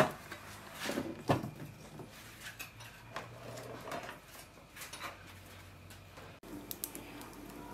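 A domed aluminium lid clanks down onto a large cooking pot right at the start. A couple of fainter knocks follow about a second later.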